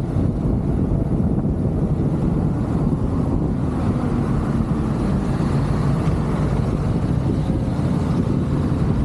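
Road vehicle travelling at steady speed: a continuous engine drone with road and wind noise, its pitch drifting slightly in the middle.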